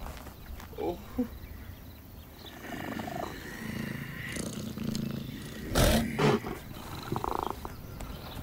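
Cat-like growling and purring from a cheetah, with short squeaky calls early on, a run of low rough growls, and two loud short growls about six seconds in.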